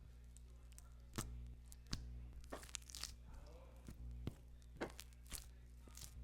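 Homemade flour-and-body-wash slime being squeezed and poked by hand, making sharp sticky clicks and pops at irregular intervals, over a low steady hum.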